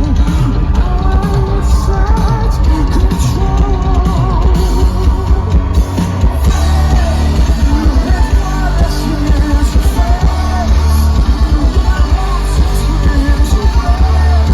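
Rock band playing live and loud through a big PA: heavy distorted guitar, bass and drums with a sung lead vocal. In the second half the band pounds out fast, even hits, about four a second.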